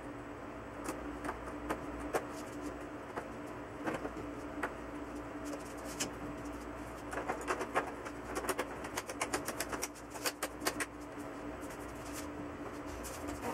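Clicks and light knocks of an LCD TV panel being reassembled: the plastic diffuser sheet is handled and the frame set and pressed into place, with a dense run of clicks in the second half. A steady low hum runs underneath.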